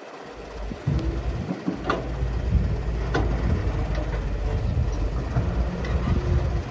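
Heavy diesel earthmoving machinery running: a loud, steady low engine rumble, with several sharp metallic knocks.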